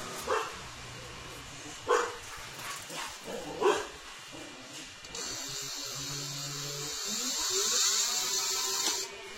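A dog barks about five times in the first four seconds. Then comes a steady whir for about four seconds that stops near the end: a Yo EXL electric scooter's wheel run up on its stand, turning freely with no brake-shoe rubbing now that the shoes are re-seated.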